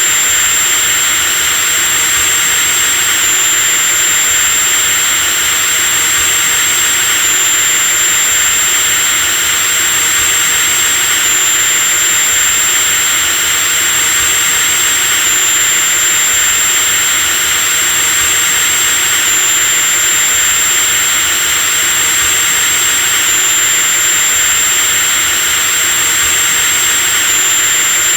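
Electric drill running continuously at a steady speed: a loud, even motor whine over a hiss, with the high whine shifting slightly in pitch about every four seconds.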